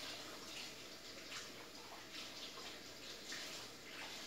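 Water running from a tap, splashing unevenly as hands are washed under it.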